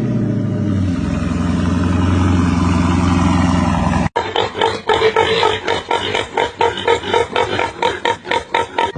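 A performance car's engine running loud under hard throttle, its pitch slowly rising, which cuts off abruptly about four seconds in. Music with a fast pulsing beat follows.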